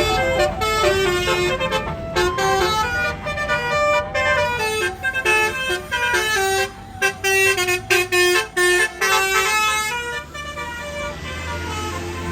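Bus telolet horn, a Basuri multi-tone air horn, playing a quick melody of changing notes, some rapid and choppy, over a bus engine running. The horn tune stops about ten seconds in, leaving the engine.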